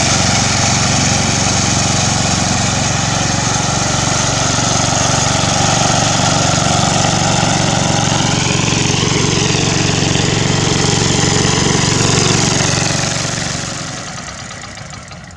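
Two-wheel hand tractor's engine running steadily as it works a flooded rice paddy, fading away near the end.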